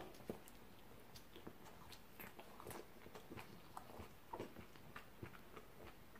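A bite into a soft stuffed flatbread sandwich, then faint mouth-chewing with small scattered clicks.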